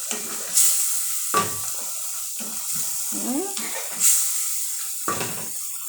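Tomato and coriander stew sizzling in a pan on the stove, a steady hiss, with two sharp knocks about a second in and near the end.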